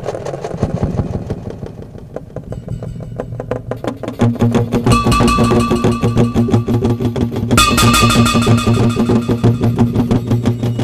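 Experimental music: a fast, even clicking pulse over a low drone, growing fuller and louder about four seconds in as higher sustained tones join.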